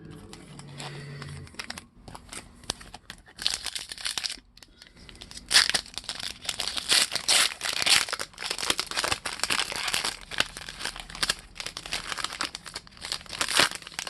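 Trading card pack wrapper crinkling and tearing as it is pulled open by hand, a run of irregular crackles that picks up about three seconds in.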